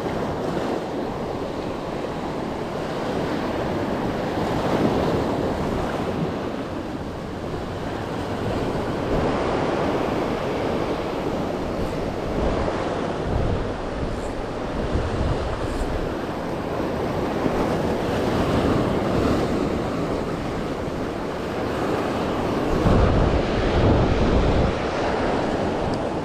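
Rough surf breaking and washing over a rocky lava shoreline, swelling and ebbing every few seconds, with wind buffeting the microphone; a heavier low rumble comes near the end.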